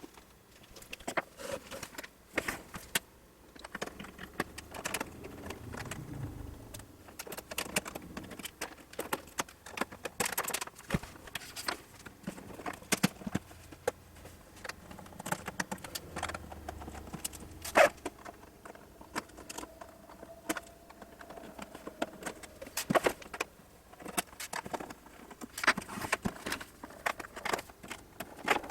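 Irregular clicks, clinks and light knocks of hand tools, screws and metal case parts being handled while an oscilloscope is taken apart.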